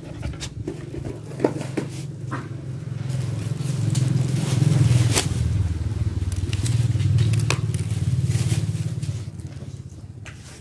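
Electric pet hair clippers buzzing steadily while trimming a dog's long coat. The buzz grows louder about three seconds in and eases off near the end, with a few sharp clicks along the way.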